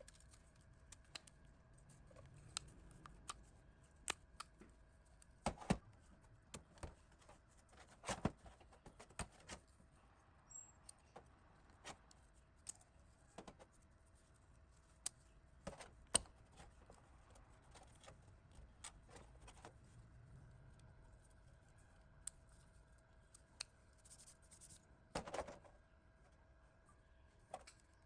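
Faint, scattered light clicks and taps of small parts or tools being handled, with a few louder knocks, over a low steady hum.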